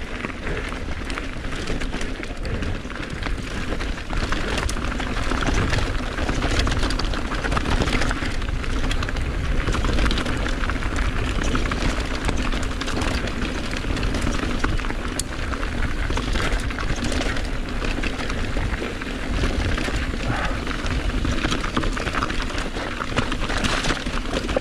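Mountain bike ridden down a rough trail: a steady rush of tyre noise over dirt and stones, with constant small clicks and rattles from the bike.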